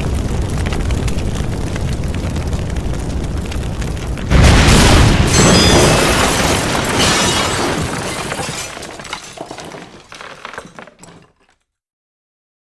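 Cinematic logo-intro sound effect: a dense rumbling build, then a sudden booming impact about four seconds in that fades out over several seconds with scattered crackles.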